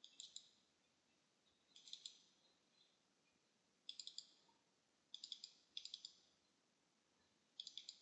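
Computer mouse button clicking faintly in quick double-clicks, about six times, as folders are opened one after another.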